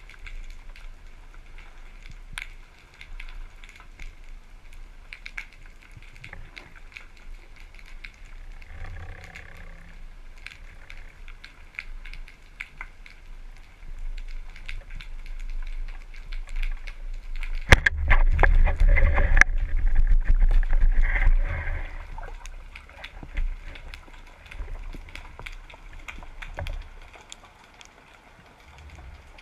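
Underwater sound picked up by a speargun-mounted camera: a steady low rumble of water with scattered clicks and crackles. About eighteen seconds in a sharp crack is followed by four seconds of much louder rushing, rumbling water noise.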